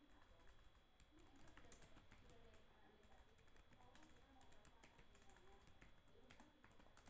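Faint, irregular clicking of a computer keyboard as commands are typed.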